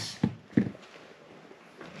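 A metal baitcasting reel set down on a wooden floor: two light knocks within the first second, then only faint room noise.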